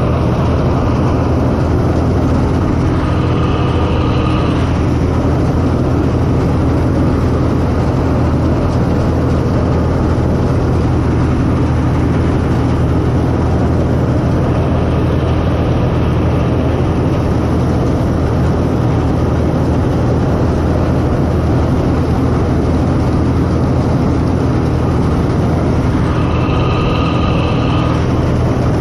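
CLAAS Mercator 50 combine harvester running steadily while harvesting wheat: its diesel engine, reel and threshing machinery heard from the driver's open platform. A brief high whine rises over the drone twice, about three seconds in and again near the end.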